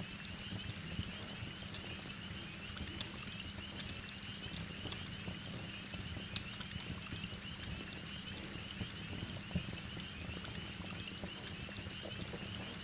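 Heavy rain hissing steadily, with scattered sharp crackles and pops from a wood fire. A steady high-pitched chirring runs underneath.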